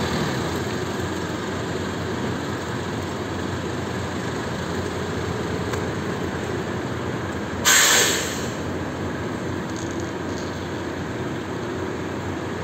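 Forklift engine running steadily as the forklift drives and turns. About eight seconds in there is a loud hiss lasting under a second.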